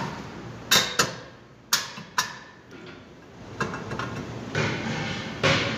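Clanks of a Nissan Altima's rear brake disc being worked loose on the wheel hub by hand. There are four sharp metallic knocks, each with a short ring, in the first two and a half seconds, then a rougher scraping rattle with a loud clank near the end.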